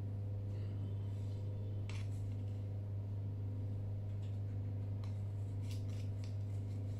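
A steady low hum, with a few faint clicks and scrapes of a small spoon scooping powdered sugar from a plastic jar and dropping it over a bowl.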